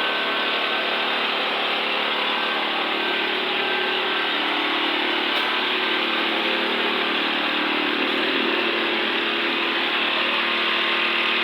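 Engine of a portable concrete mixer running steadily at a constant speed.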